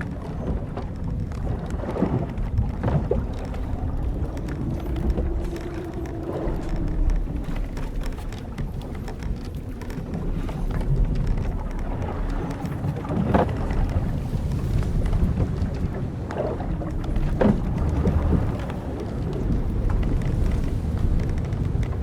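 Old wooden sailing ship creaking, its timbers and ropes groaning over a steady wash of sea and wind. A long, wavering creak runs through the first several seconds, and a few sharp creaks follow, the clearest about halfway through and again a few seconds later.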